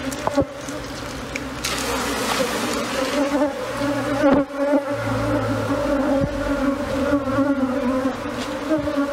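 Steady buzzing of a large swarm of Africanized honeybees massed on a hive box as they move into it, a constant low hum with a higher overtone. A couple of sharp knocks come through about half a second and about four seconds in.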